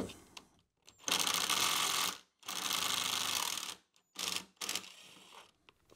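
Cordless driver spinning a T25 Torx screw out of a metal ski rail cover: two steady runs of about a second each, then a few short bursts.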